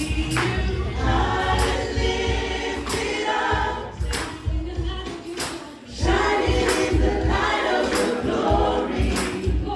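Choir singing a gospel worship song over a band with a steady drum beat. The music thins out briefly about five seconds in, then comes back in full.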